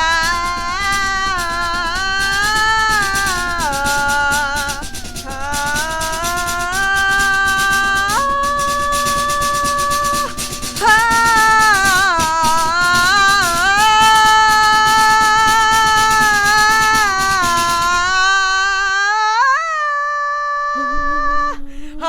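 A woman singing a melody over a rattling, shaker-like percussion track made from household objects. About four seconds before the end the percussion drops out, leaving the voice alone.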